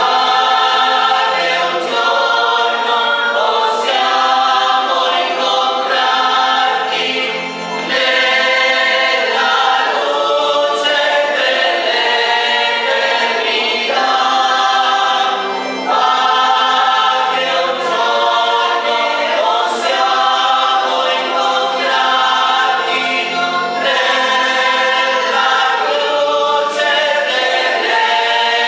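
Church choir singing a hymn in held notes, with short breaks between phrases.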